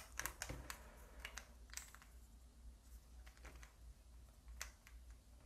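Faint plastic clicks and taps of Ghost Cube pieces being handled and tried in place during reassembly, several in quick succession in the first couple of seconds, then a few scattered ones.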